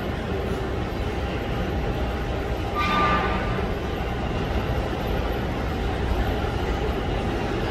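New York City subway train approaching through the tunnel: a steady low rumble of wheels on rails, with a brief high-pitched tone about three seconds in.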